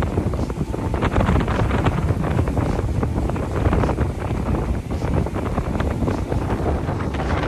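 Wind buffeting the microphone over the steady running of a flat-bottom boat's motor and the rush of water as the boat travels along at speed.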